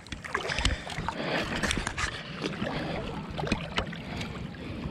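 River water splashing and gurgling around a landing net held in the current with a rainbow trout in it, with many short, sharp splashes and drips.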